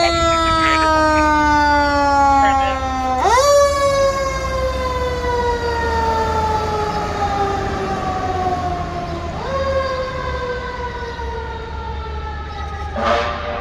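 Fire engine siren on a 2023 Spartan ER MetroStar pumper responding to a call. Its pitch slides slowly down, then winds quickly back up twice, and falls slowly again each time. A short louder burst comes near the end.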